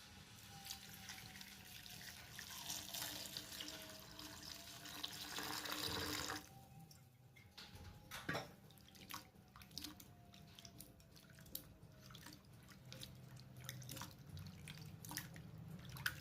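Water running from a kitchen tap, growing louder for about six seconds and then shut off suddenly, followed by scattered drips and small clicks.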